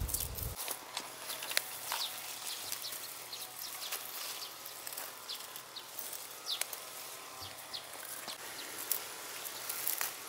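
Grass and strawberry leaves rustling and crackling as hands part the plants and pick strawberries, in short irregular bursts with a few sharper snaps. A low rumble cuts off about half a second in.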